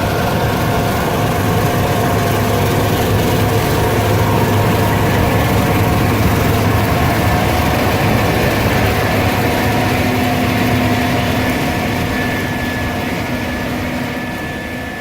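Heavy diesel harvest machinery running steadily: a deep engine hum with several steady whining tones over it, fading away over the last few seconds.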